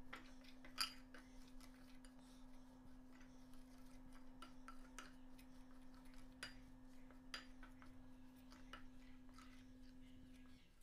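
Faint clicks and scrapes of a metal spoon against a glass bowl as a dry flour-and-spice batter mix is stirred, over a steady low hum.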